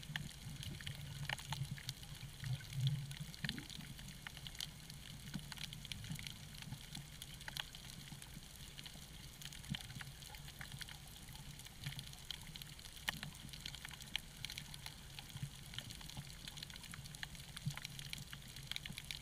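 Underwater reef ambience heard through the camera: a faint steady crackle of many scattered sharp clicks over a low hum that comes and goes, loudest in the first few seconds.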